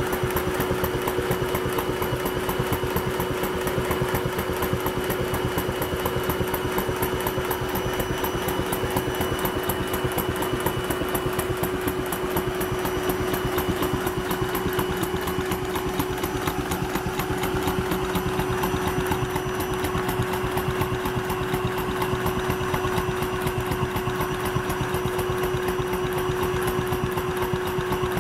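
Wooden toy piston engine driven by vacuum cleaner suction, running steadily with a rapid, even clacking of its valve and crank, over the vacuum cleaner's steady motor whine.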